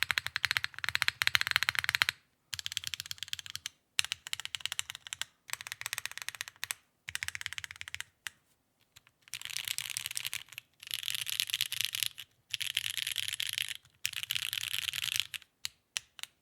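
Mechanical keyboard typing on a Neo65 CU fitted with HMX Sonja HC switches: rapid keystrokes in bursts of a second or two, with short pauses between them.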